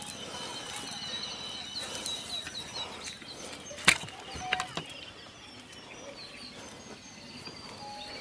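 Hillside scrub ambience: a steady high-pitched drone with rapid repeated chirps over it for the first few seconds, faint rustling of footsteps through brush, and one sharp click about four seconds in.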